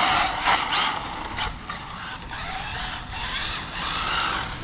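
Arrma Infraction V2 1/7-scale RC car on 8S, its 1600KV brushless motor whining up and down in pitch over a noisy rush of tyres on pavement, loudest in the first second.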